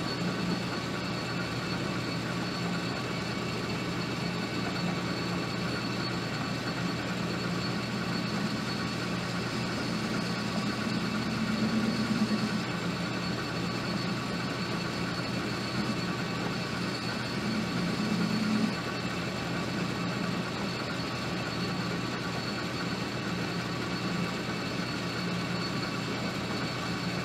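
Metal lathe running with its chuck spinning while the tool takes a turning cut on the part: a steady motor and gear hum with a thin high whine. It swells briefly about twelve seconds in and again about eighteen seconds in.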